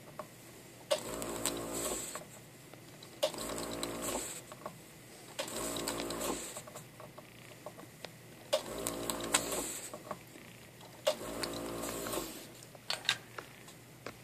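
Desoldering iron's vacuum pump running in five bursts of about a second each, every two to three seconds, each opening with a sharp click, as it sucks melted solder off a row of connector pins. A few lighter clicks follow near the end.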